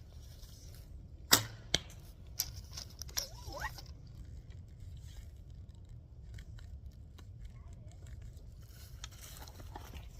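A bow shot: a sharp snap as the string is released, then a second sharp crack a fraction of a second later as the arrow hits the target. A few fainter clicks follow.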